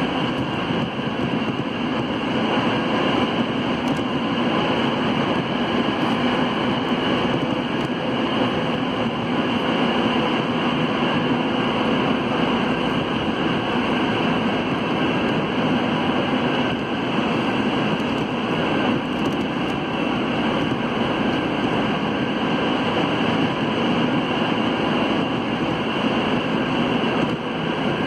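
Alsthom NS 74 rubber-tyred metro train running through a tunnel, heard from inside the car: a steady, even running noise with no letup.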